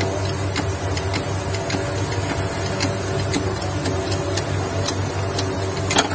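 A ball bearing being pressed off a motorcycle crankshaft in a shop press: a steady low hum with light ticks about twice a second, then one loud sharp crack near the end as the bearing breaks free of the shaft.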